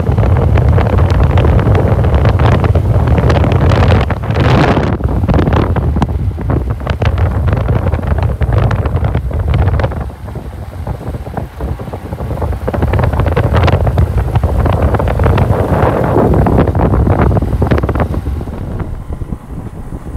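Loud wind buffeting the microphone of a rider on a moving motorbike, a heavy rumble that rises and falls in gusts, dipping for a moment about halfway through and easing off near the end.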